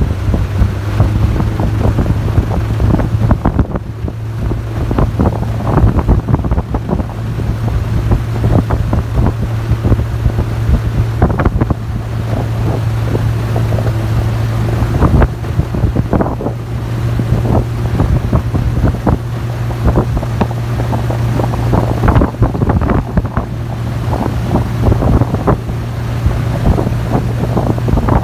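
Aluminium boat's Yamaha outboard motor running steadily under way, with a steady low drone, irregular knocks of the hull on the water and wind rushing over the microphone.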